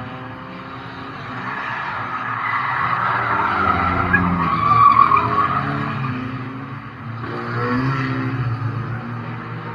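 Race car engine heard from inside the cabin, revving and easing off, with tyres skidding and scrubbing on the track. The sound is loudest about halfway through.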